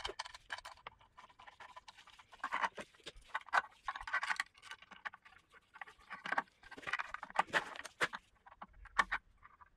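Irregular clicks, taps and scrapes of an aluminium DRO linear scale and an Allen key being handled and fitted against a milling machine table.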